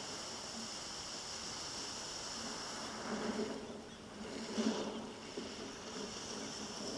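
Sea surf washing over and around rounded beach cobbles, a steady rush that swells about three seconds in and surges loudest just before five seconds, picked up by a camera lying among the wet stones.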